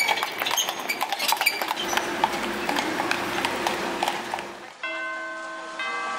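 Horse's hooves clip-clopping on the street as a horse-drawn carriage passes. About three-quarters of the way through, the sound cuts to background music with sustained notes.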